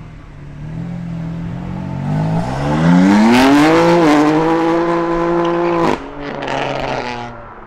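Car engine and exhaust revving up hard as the car accelerates away: the pitch climbs steeply, dips briefly as if at a gear change about four seconds in, and holds high and loud before cutting off sharply about six seconds in. A short rush of noise follows as it fades.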